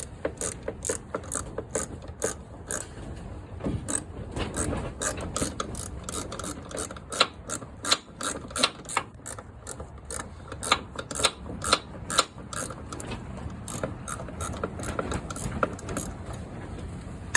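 Hand ratchet wrench clicking in quick runs of strokes as the steering gear box mounting bolts are run in, still short of fully tight.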